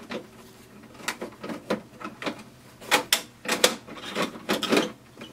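A string of separate plastic clicks and knocks, about a dozen, as the front paper and output trays of a Canon Pixma TR4522 all-in-one printer are handled and pushed into place.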